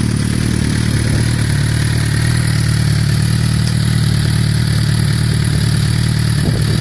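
Suzuki GSX-R1000 K9's inline-four engine idling steadily through an aftermarket MIVV X-Cone exhaust silencer.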